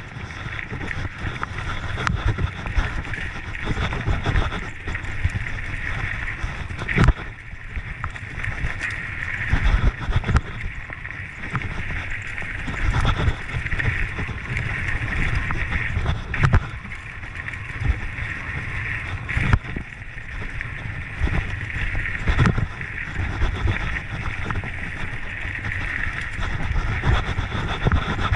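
Mountain bike riding fast down a dirt trail: wind rushing over the microphone, tyres rumbling over dirt, and the bike rattling with frequent knocks from bumps, over a steady high buzz.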